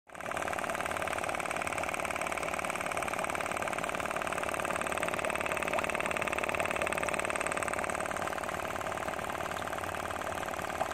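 Homemade air pump running steadily: a small DC motor turning a crank that drives a pump chamber made from a PVC end cap, with a fast, even mechanical rattle.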